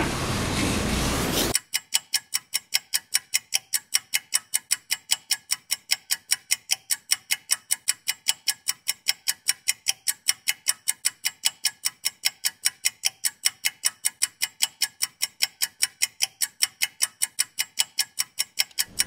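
A clock ticking steadily and quickly, about four to five ticks a second with dead silence between them, starting about a second and a half in. Before the ticking, a steady hiss.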